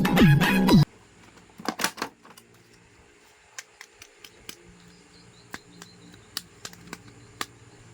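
Music cuts off about a second in, then scattered light clicks and taps from a plastic action figure and its packaging being handled, a few louder ones close together near two seconds in.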